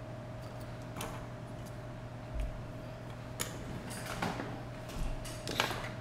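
Objects being handled on a workbench: a handful of scattered clicks and knocks, the louder ones near the end, over a steady low hum.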